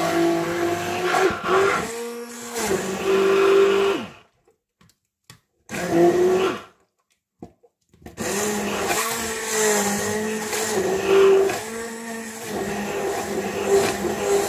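Handheld immersion blender running in a plastic beaker, puréeing strawberries. It runs for about four seconds, stops, gives a short burst around six seconds, then runs again from about eight seconds on, its whine dipping and rising in pitch as the blade meets the fruit.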